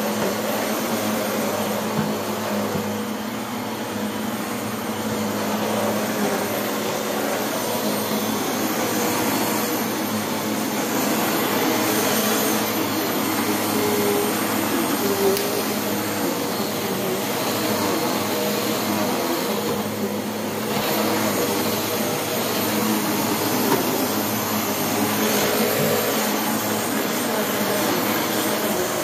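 Vacuum cleaner running steadily, its motor holding an even hum under the rush of air.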